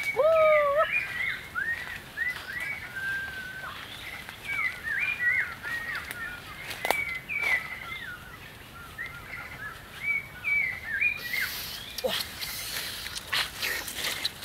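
Forest birds calling with many short, repeated chirps, opening with a loud rising call. In the last few seconds, rustling and crunching of footsteps through dry leaf litter.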